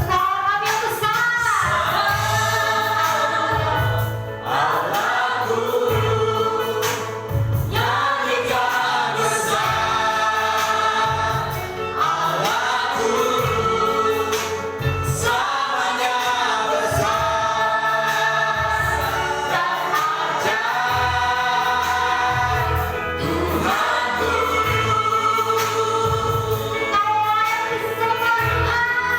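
Church worship music: a choir of voices singing a gospel worship song in long sung phrases over a band with a steady bass line.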